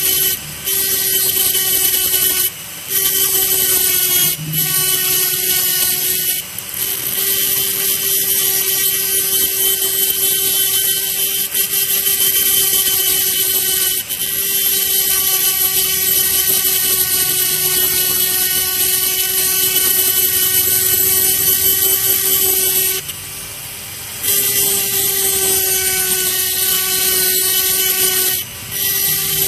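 Small high-speed rotary grinder whining steadily as it grinds the Zippo lid smooth where the old upper hinge was pulled out. It lets up briefly several times, once for about a second.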